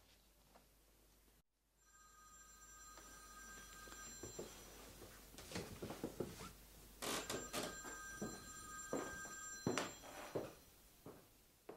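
A telephone ringing twice, each ring lasting about two seconds with a pause of about two seconds between them, over rustling, knocks and footsteps as a man gets up from an armchair and walks across a wooden floor.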